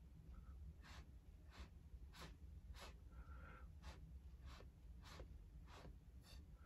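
Faint, short puffs of breath blown through a drinking straw onto wet acrylic paint, about nine in a steady run of roughly three every two seconds.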